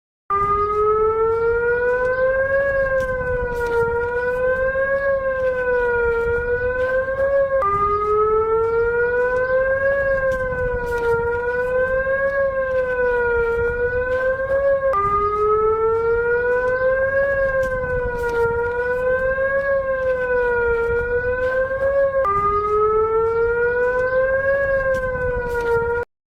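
Civil-defense-style wailing siren, its pitch rising and falling slowly about every two and a half seconds over a low rumble. The siren sound breaks off and starts over about every seven seconds, like a repeating loop.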